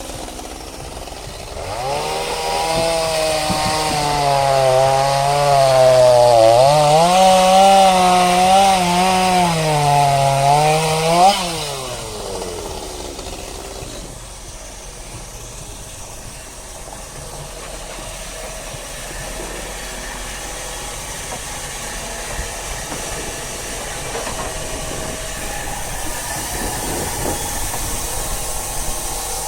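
An engine running hard for about ten seconds, its pitch wavering up and down and peaking just before it drops away. A lower, steady mechanical running sound follows.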